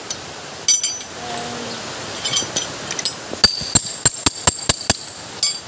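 Metal wrench tapping on the aluminium pinion housing of a Toyota Corolla power steering rack: a few light metallic clinks, then a quick run of about eight sharp ringing taps about three and a half seconds in.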